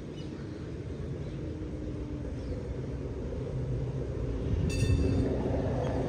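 Low rumbling noise that slowly grows louder, with a faint steady hum through it and a short high-pitched chirp near the end.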